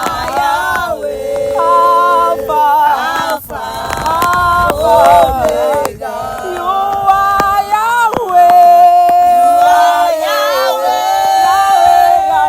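Several voices singing a worship chorus unaccompanied, holding long notes that slide between pitches, with no clear words.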